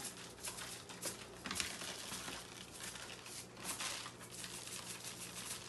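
Plastic zip-top freezer bags crinkling faintly as steak spice is shaken into them from a spice shaker, in a few soft, brief rustles.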